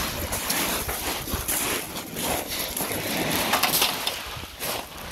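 Wind buffeting the microphone over small waves breaking on a shingle beach, with footsteps crunching on the shingle.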